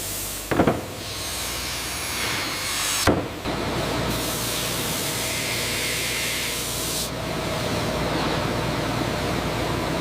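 Plywood-factory machinery running with a steady low hum, with two stretches of hiss and a sharp knock about half a second in and another about three seconds in.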